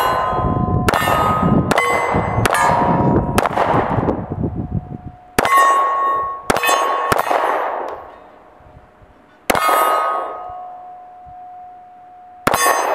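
Pistol shots hitting steel targets: about ten sharp cracks, several in quick succession at first and then spaced further apart, each answered by the clang of a struck steel plate ringing out at its own pitch and fading over a second or two.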